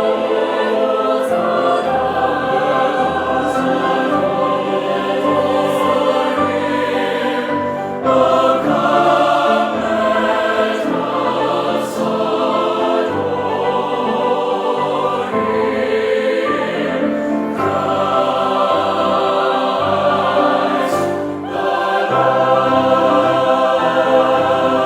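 A choir singing a hymn in sustained phrases, with short breaths between phrases about eight, twelve and twenty-one seconds in.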